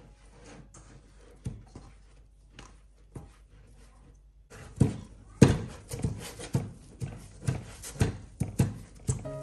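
Hands kneading soft yeast dough in a stainless-steel mixing bowl. There is faint squishing at first, then from about halfway a regular run of slaps, roughly two a second, as the dough is pressed and folded against the bowl.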